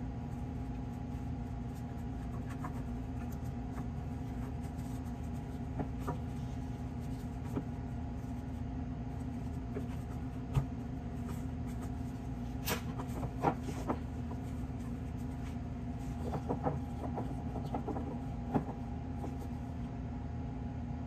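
Steady low machine hum with a couple of constant tones in it, and scattered light taps and clicks as ladyfinger biscuits are set down in a stainless steel pan, the sharpest a little past halfway.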